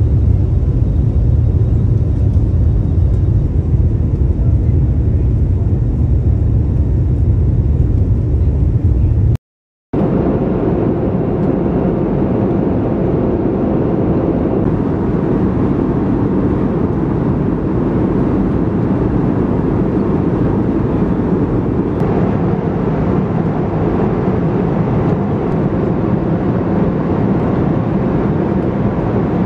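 Steady roar of an airliner cabin in flight, engine and airflow noise. It is deep and heavy at first, then after a brief cut about nine seconds in it becomes a lighter, even rush with a faint steady hum.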